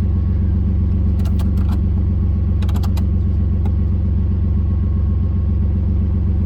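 Ford Contour engine idling steadily, its exhaust noisy and in need of repair. A few quick clicks come about a second in and again near three seconds.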